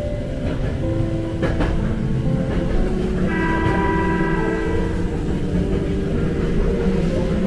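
Nose Electric Railway 5100 series electric train running on the track into a tunnel: steady running rumble with wheel clicks over rail joints. From about three seconds in, a high ringing tone of several pitches sounds for about two seconds.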